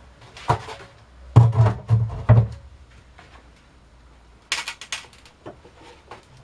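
Pressed grape pomace being pulled out of a wooden basket press by gloved hands: a run of dull thuds in the first half, then a quick cluster of sharp knocks about halfway through and a few more near the end.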